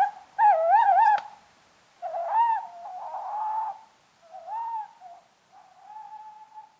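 Tawny owls hooting: a string of pitched, wavering hoots, the loudest and most quavering about half a second in. The later hoots come softer and more drawn out, ending in a long, faint note near the end.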